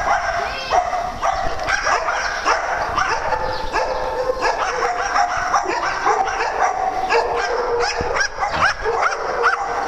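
Several small dogs barking and yipping over one another without a break, short high calls coming several a second.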